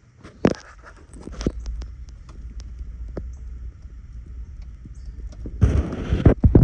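Scattered clicks and knocks of parts and tools being handled, one louder knock about half a second in, then a loud stretch of thumps and rustling about five and a half seconds in.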